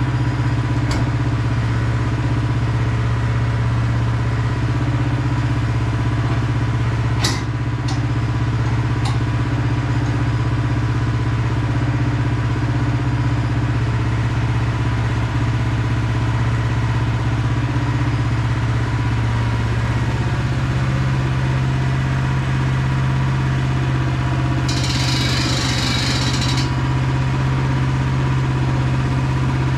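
Engine of a Woodland Mills HM122 portable sawmill running steadily at an even speed. A sharp knock comes about seven seconds in, a lighter one about two seconds later, and a short hiss near the end.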